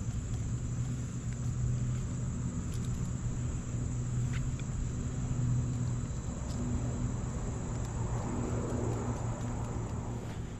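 Steady low hum of running machinery over a low rumble, with a few light clicks of wire being handled.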